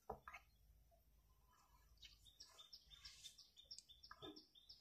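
Near silence with faint bird chirping: from about halfway through, a run of short, high, evenly repeated chirps, a few a second.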